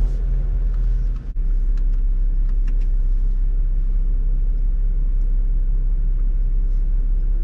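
Jeep engine running low and steady as it crawls over a rocky trail: a deep, even rumble with a few faint clicks and knocks. The sound drops out briefly about a second in.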